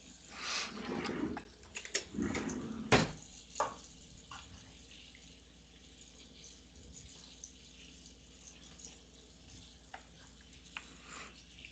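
Kitchen handling sounds while chicken is being breaded: two brief soft scraping, rustling stretches and a sharp click about three seconds in, then mostly quiet with a few faint ticks.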